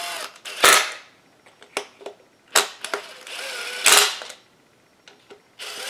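A handful of separate sharp clacks and knocks of metal parts being handled at a workbench, a chainsaw crankcase being turned over and tools set down, the loudest about four seconds in.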